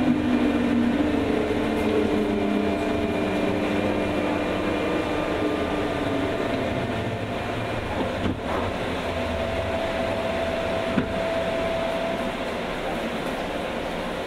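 Running sound of a JR West 201 series electric train, heard inside the motor car MoHa 201-199: a steady rumble of wheels and rails. Humming tones from the traction equipment sink slightly and fade in the first half, and there are two short knocks later on.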